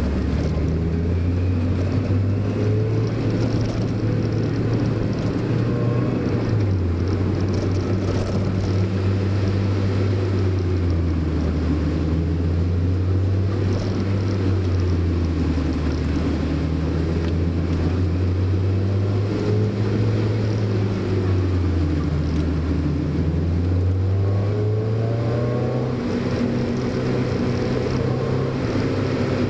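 Mazda Roadster's four-cylinder engine running under way, its pitch dropping and climbing again several times as the revs change, over steady road noise.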